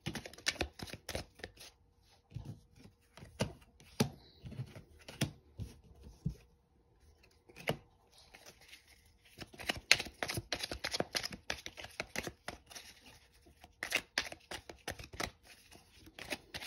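Tarot cards being shuffled and handled by hand: a run of short sharp snaps and slaps, thinning out to a lull in the middle and coming in busier flurries in the second half.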